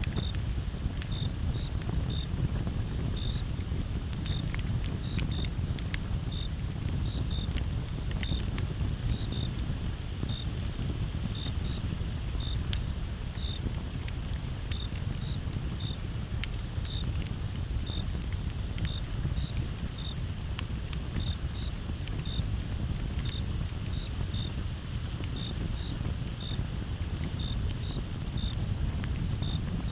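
Wood campfire crackling with frequent sharp pops over a low steady rumble. A cricket chirps evenly about twice a second against a constant high insect drone.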